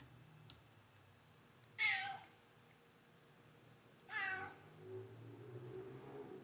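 Siamese cat meowing twice, two short calls about two seconds apart, the first the louder, begging for a piece of meat.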